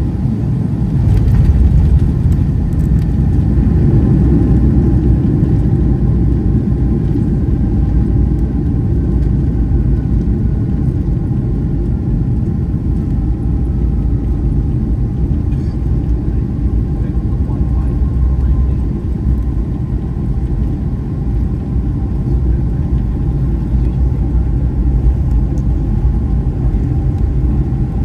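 Cabin noise of a Boeing 757-200 rolling on the ground after landing: a steady, heavy rumble, loudest in the first few seconds and then easing slightly, with a faint engine whine slowly falling in pitch.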